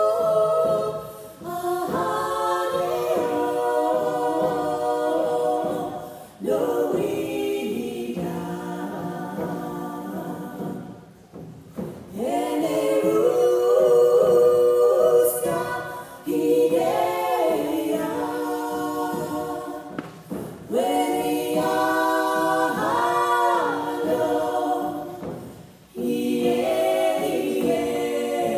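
Women's a cappella vocal group singing in close harmony, in long held phrases with short breaks between them.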